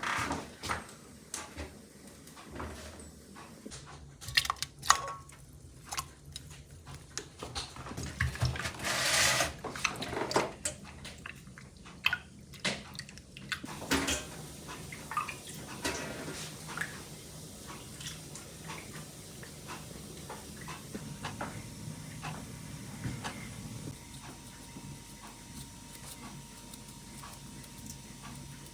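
Scattered knocks and clatter of things being handled, with a brief hissing rush about nine seconds in; the second half is quieter, with light ticks.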